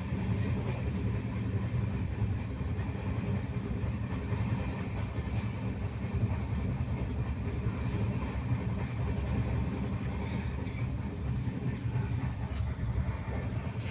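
A moving passenger train heard from inside the carriage: a steady rumble of wheels running on the track.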